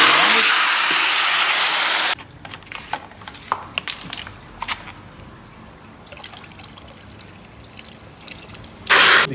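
Garden hose spray nozzle spraying water into a plastic bucket, loud and hissing for about two seconds before cutting off. Scattered small clicks and knocks follow, then another short spray burst near the end.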